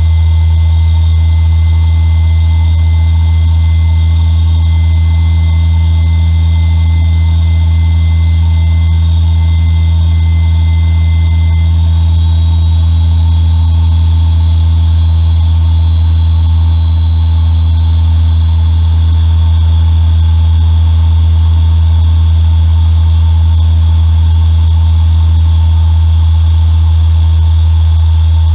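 Micro gas turbine running on its test rig: a loud, steady low rumble with thin high whines over it. About halfway through, a whine climbs in pitch and then holds higher.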